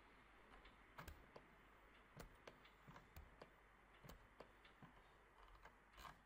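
Near silence with a dozen or so faint, irregular clicks from a computer mouse being clicked and used to drag a part in the CAD program.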